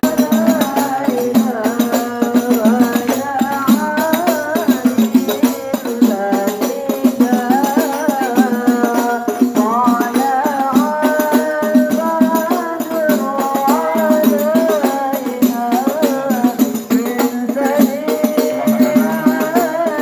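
Rebana frame drums beating a fast, steady rhythm while voices sing a devotional melody over them.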